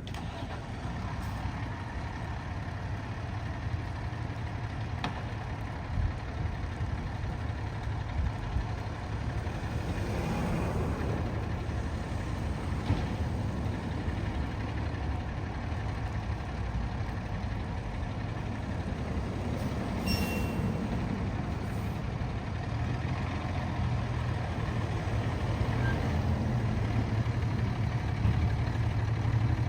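Fire pumper's diesel engine running with a steady low rumble that grows louder near the end. A few brief high tones sound about two-thirds of the way through.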